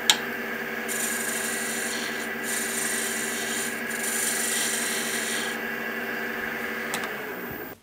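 Record Power wood lathe running with a steady hum while a hand-held turning tool is worked against the spinning wooden candleholder. A hiss of cutting comes in about a second in and stops after about five seconds. Near the end the lathe is switched off and its hum falls away.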